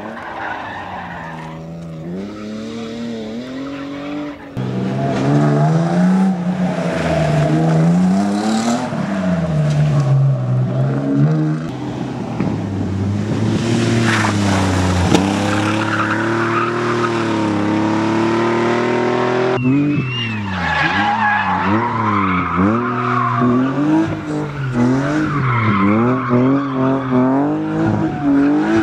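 Rally car engines revving hard, their pitch climbing and dropping again and again through gear changes and lifts, with tyres squealing and skidding. The sound changes abruptly about four and a half seconds in and again near twenty seconds, as one car gives way to another.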